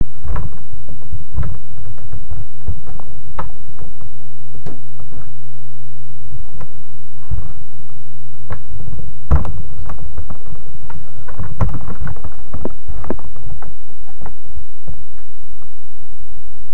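Irregular knocks, creaks and rustles from a body shifting on a futon while a heavy plate-loaded dumbbell is pressed, over a steady low hum.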